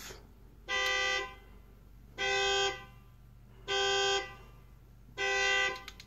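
Car alarm sounding the car's horn in four regular honks, each about half a second long and about a second and a half apart, the alarm set off deliberately.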